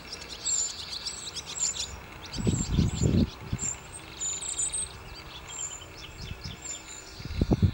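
Small birds chirping and twittering over and over, with two spells of low rumbling, about two and a half seconds in and again near the end, that are the loudest moments.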